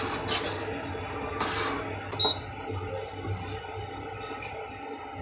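A metal spoon scrapes and stirs thick spinach gravy in a kadai on an induction cooktop, a few soft strokes in the first couple of seconds. Under it runs the cooktop's low steady hum.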